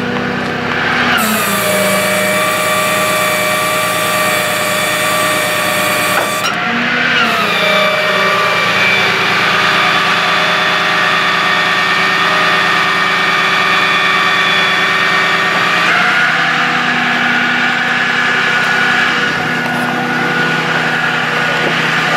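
Bucket truck's PTO-driven hydraulic system working the outriggers: a steady hydraulic whine over the running engine. The whine slides in pitch about a second in and again around six to seven seconds in, then eases at about sixteen seconds, leaving the engine hum.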